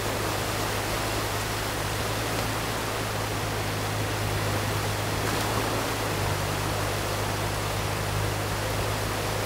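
Water rushing steadily through a breach in a beaver dam, with the low steady hum of a New Holland mini excavator's engine running beneath it.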